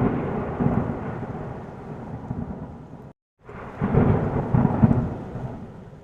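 Two rolls of thunder-like rumbling, each starting suddenly and dying away. The first cuts off abruptly about three seconds in, and the second starts a moment later.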